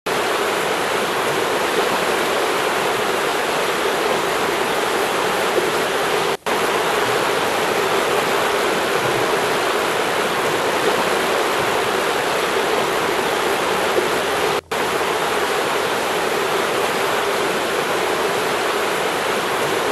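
Steady rushing of a river flowing over rocks, a loud even hiss of water. It cuts out for an instant twice, about six and fifteen seconds in.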